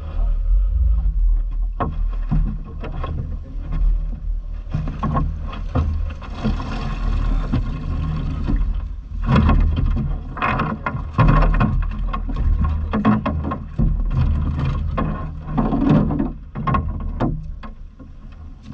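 Cast net being hauled hand over hand back into a small boat: water splashing and streaming off the mesh, with many short knocks and rattles, over a steady low rumble.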